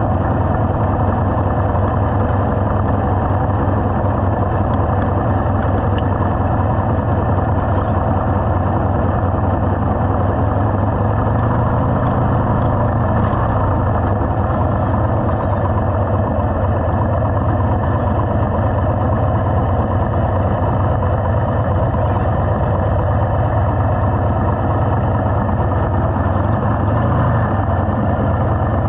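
Motorcycle engine running steadily at low speed as the bike rolls slowly, with a brief rise and fall in revs about twelve seconds in.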